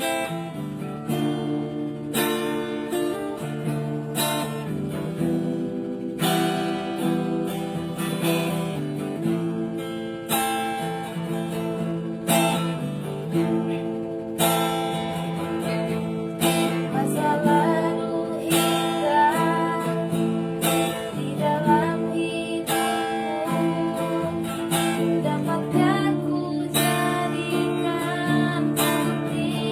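Music: an acoustic guitar strumming chords that change every second or two, with a wavering melody line over it in the middle.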